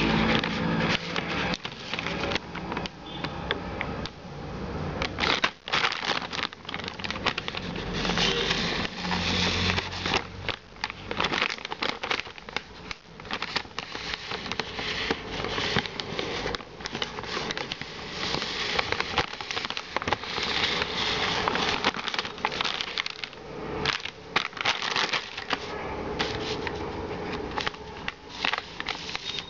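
Clear plastic packaging crinkling and crackling as it is handled, in irregular bursts of rustle that go on throughout.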